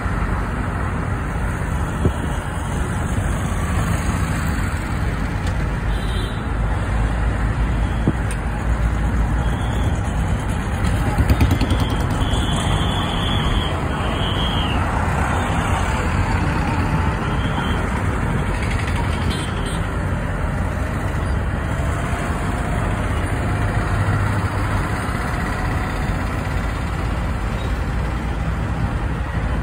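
Steady low rumble of road and wind noise from a moving vehicle, with other traffic going past, including a bus. A short high tone sounds about halfway through.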